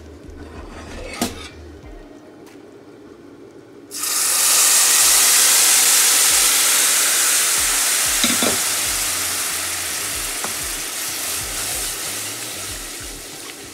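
Water poured into semolina roasted in butter in a hot pan: a sudden loud sizzling hiss starts about four seconds in and slowly dies down while the mixture is stirred. Before it, a spatula scrapes and clicks against the pan.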